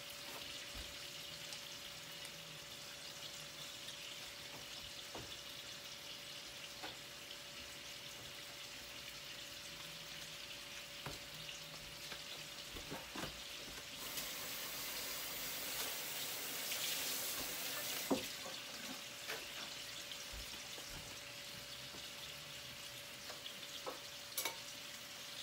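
Chicken pieces sizzling as they brown in butter in a frying pan, with a few light clicks and knocks of a utensil. The sizzle swells louder for a few seconds past the middle and ends in a sharp knock.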